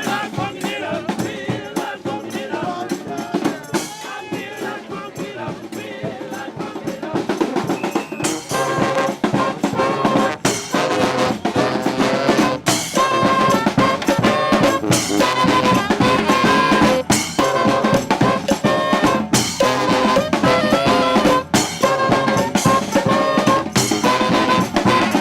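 Brass band playing live, with trumpets, trombones and drums. For the first several seconds mostly drums and percussion carry the music; about eight seconds in the horns come in on held notes and the music grows louder.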